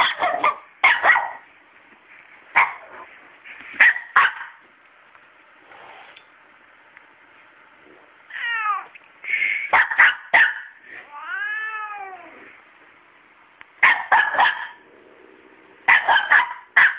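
A small dog barking at a cat in short, sharp clusters of barks, again and again. The cat answers with meows: a few quick falling cries, then one long drawn-out cry that rises and falls, a bit past the middle.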